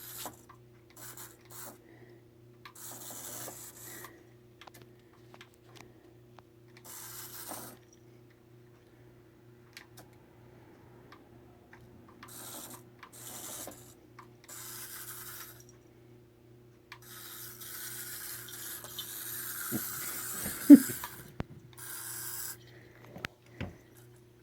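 A small toy car rolling and scraping across the floor as a kitten pushes it, in intermittent bursts of a second or more, with one sharp knock about 21 seconds in, over a steady low hum.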